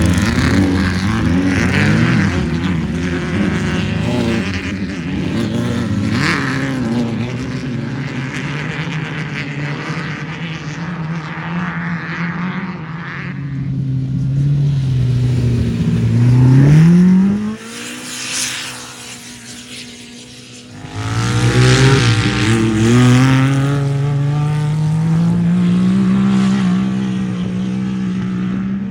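Off-road race vehicle engines running and revving. The pitch climbs to a loud peak about two-thirds of the way through, drops quieter for a few seconds, then climbs steadily again as a vehicle accelerates.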